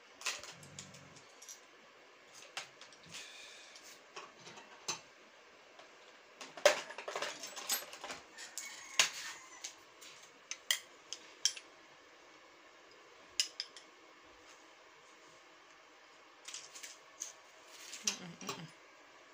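Small metal parts of a sewing-machine thread stand clinking and clicking as they are handled and fitted together by hand: scattered clicks, busiest about a third of the way in and again near the end.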